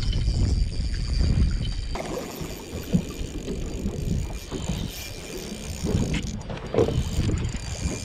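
Wind buffeting the microphone on an open boat, heavy for about the first two seconds and then dropping off, with small knocks and rustles of hands handling a spinning rod and reel.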